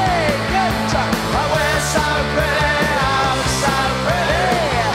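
Live band playing a rock song: a man singing over hollow-body electric guitar, acoustic guitar and a drum kit, with a steady beat and two cymbal crashes.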